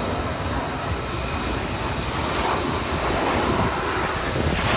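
Military fighter jet's engines, a steady rushing roar as the jet flies low over the runway to land, growing a little louder near the end.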